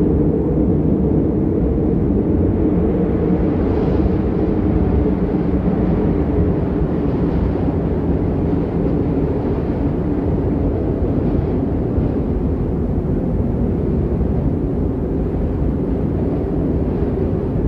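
Snow sound effect: a steady, unbroken low rumbling ambience, with faint hissing swells now and then.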